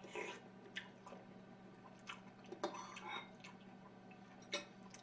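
Metal spoon clicking and scraping against a ceramic bowl in a scattered series of short clicks, with soft eating sounds, over a faint steady hum.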